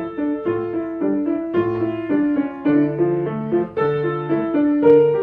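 Piano playing three insect rhythms layered together: a low bass line for the grasshopper under repeating mid-range figures for the bees and the beetle, the pattern recurring about once a second.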